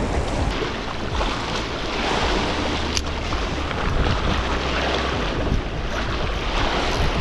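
Sea waves washing and splashing over a rocky shoreline, with wind buffeting the microphone. A single sharp click about three seconds in.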